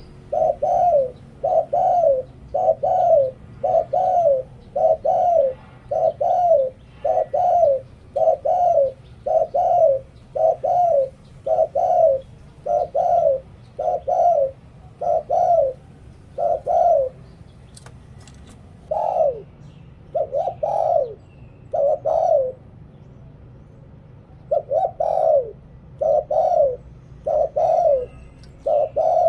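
Spotted dove cooing in the 'หลิ่วตัน' style: a long run of short coos, about one and a half a second, with two brief pauses in the second half.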